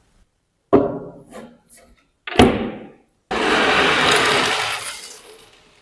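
Workshop tool sounds on a rusty knife: two sharp knocks that ring briefly. Then a steady rushing tool noise starts and tails off gradually.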